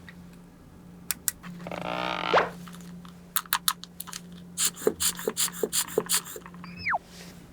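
Small plastic toy pieces being handled, with light clicks and taps, a drawn-out squeak about two seconds in, a quick run of sharp taps in the second half, and a short falling whistle near the end. A steady low hum runs underneath.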